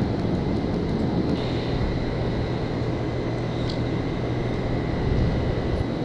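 Steady low rumble of running machinery, with a low hum that joins about a second and a half in.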